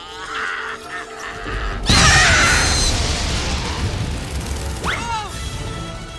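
Animated-film battle soundtrack: background score with a sudden loud crash about two seconds in that rings on and fades over the next few seconds, and a brief squeal that rises and falls near the end.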